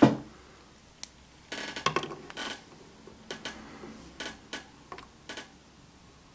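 Small plastic action figure being handled and stood up on a tabletop: scattered light clicks and taps of plastic as its limbs are adjusted and its feet set down, in a few short clusters.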